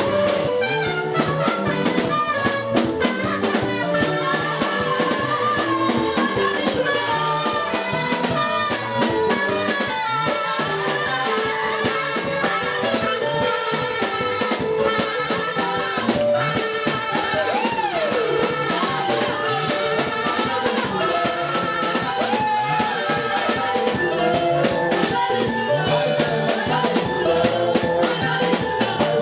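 Music with a steady drum-kit beat and instruments, with some singing.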